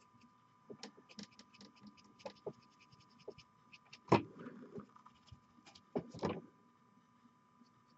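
Dry brush scratching and flicking over a painted miniature in short, irregular strokes, with small clicks of fingers handling its base. Two louder knocks come about four and six seconds in. A faint steady electrical hum sits underneath.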